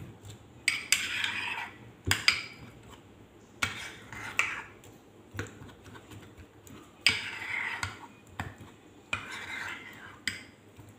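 A metal spoon stirring and scraping a thick mayonnaise-based sauce in a small ceramic bowl, with sharp clinks every second or so as the spoon strikes the bowl.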